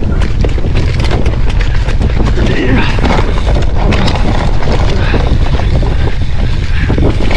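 Hardtail mountain bike riding fast down a rough trail: continuous clattering and knocking from the bike over the bumps, with a heavy rush of wind and rumble on the camera microphone.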